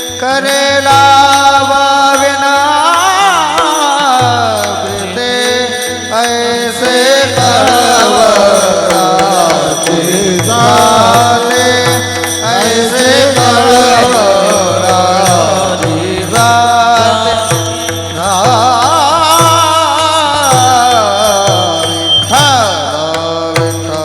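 Warkari kirtan abhang sung by a male voice in a devotional melody, over steady held accompaniment tones and regular drum strokes with metallic hand-cymbal strikes.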